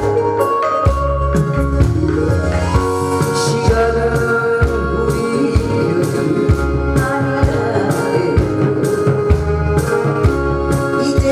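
Korean trot song played loud through a sound system, with a steady pulsing bass beat and an organ-like electronic keyboard melody.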